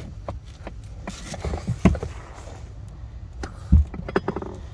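Scattered clicks and knocks from an aluminium swivel seat post and its floor mount being handled in an inflatable boat, with two heavier thumps, about two seconds in and near four seconds.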